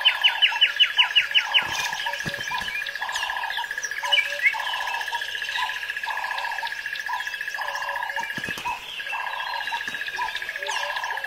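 Birdsong: a common nightingale's fast run of repeated notes that stops about two seconds in, then scattered chirps. Under it runs a steady high tone and a lower call that pulses about three times every two seconds.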